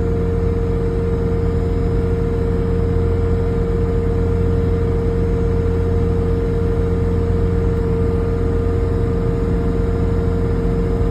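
Bobcat T450 compact track loader's diesel engine running steadily, heard from the operator's seat, with a steady high whine over the low engine note.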